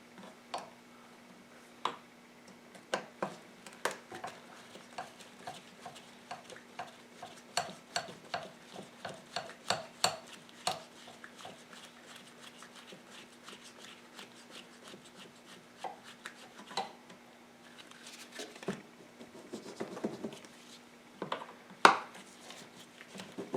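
Metal hand tools clicking and clinking against a quad's fasteners as they are worked loose, with a fairly regular run of clicks for a few seconds in the middle, like a ratchet wrench being worked. A faint steady hum runs underneath.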